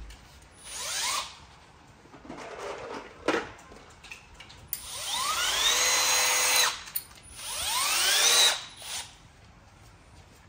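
Power drill run in four trigger pulls, its motor whine rising in pitch as it spins up and then holding steady. The longest run lasts about two seconds, past the middle, and a sharp click ends the second run.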